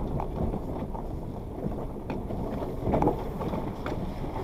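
Suzuki Jimny driving slowly over a gravel riverbed track, heard from inside the cabin: a steady low rumble of engine and tyres with scattered knocks, and a louder knock about three seconds in.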